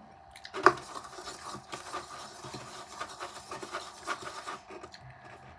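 Close rubbing and rustling handling noise, with one sharp knock near the start. It lasts about four seconds and then stops.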